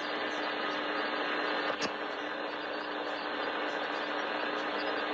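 Steady radio static hiss under a faint constant hum, with a single sharp click a little under two seconds in.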